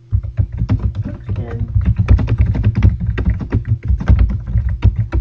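Computer keyboard being typed on steadily, a quick run of keystroke clicks with heavy low thuds.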